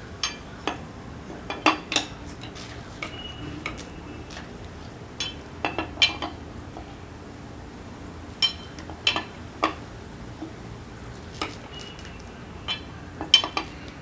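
Lug wrench clinking on the wheel's lug nuts as each nut is fitted and checked for tightness: irregular sharp metal clinks, some in quick pairs or clusters, a few ringing briefly.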